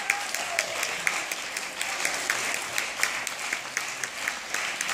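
Theatre audience applauding: steady clapping from many hands.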